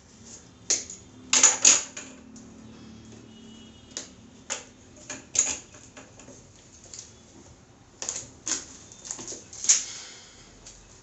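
Cardboard phone box and a paper label being handled and peeled: irregular taps, scrapes and crinkles of card and paper, a few sharper clicks among them.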